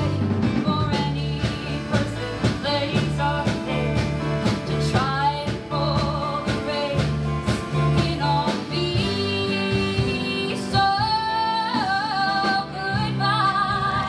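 A woman singing a folk-rock song live with a band: acoustic guitar, bass guitar and drums.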